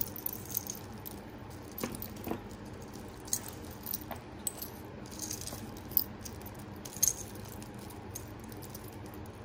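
Costume jewelry (metal chains, beads and pendants) clinking and rattling as pieces are handled and pulled out, in scattered light clicks at irregular intervals.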